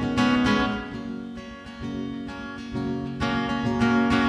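Acoustic guitar strumming chords in an instrumental passage of a song, with stronger strums near the start and again about three seconds in.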